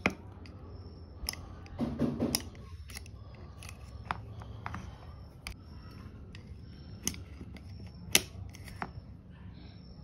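Scattered sharp clicks and light knocks as the small plastic pump-housing parts of a Kärcher K3 pressure washer are handled and set down on a rubber work mat, with a brief rustle about two seconds in. A low steady hum runs underneath.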